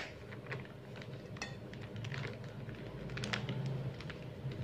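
Rice flour pouring from a plastic bag into a stainless steel bowl, with the bag crinkling in light, scattered crackles and ticks over a faint low hum.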